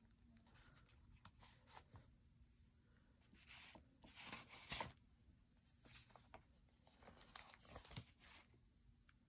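Faint rustling and crackling of paper sticker sheets being handled and stickers pressed onto a planner page, with the loudest crinkle about four to five seconds in.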